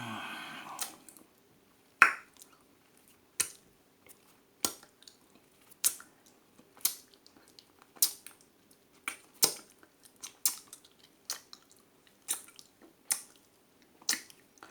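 A person making tongue clicks with the mouth: a steady series of sharp clicks, about one a second, the first and loudest about two seconds in. A voiced mouth sound fades out in the first second.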